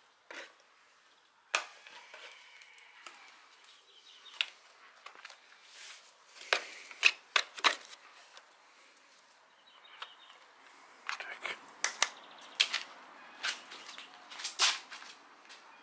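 Paper seed packets being rummaged through and handled by hand: irregular sharp crinkles and clicks, coming in bunches about halfway through and again near the end.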